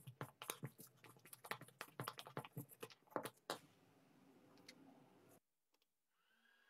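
Quick, irregular light clicks and taps of small metal parts being handled as the old pencil sharpener's crank handle is unscrewed and the pieces are taken apart. The clicks stop about three and a half seconds in.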